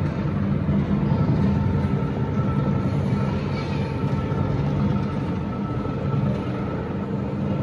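Powered locomotive turntable rotating under its electric drive: a steady mechanical hum with a faint steady gear whine over it.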